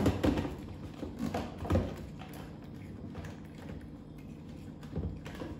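Light knocks and clicks of a plastic blender jar being set on its base and handled. There are several in quick succession at first and another pair about five seconds in.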